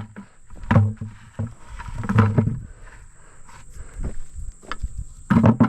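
Potatoes picked from the row and dropped into a pail: several dull thuds and knocks, the loudest about a second in, around two seconds in and near the end.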